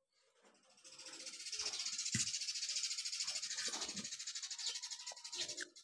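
Wet chewing and slurping of spaghetti, with short smacking clicks. Behind them a steady, high, fast-pulsing buzz fades in about half a second in and becomes the loudest sound.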